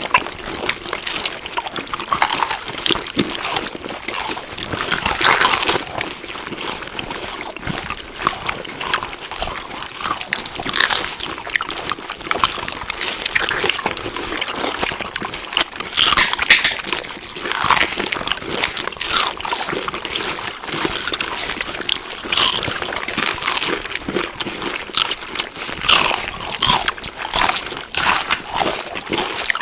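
Close-up chewing of food: a continuous run of short smacking and crunching clicks, in louder clusters now and then.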